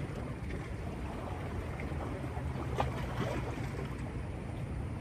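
Steady low rumble of wind and water, with a light click about three seconds in.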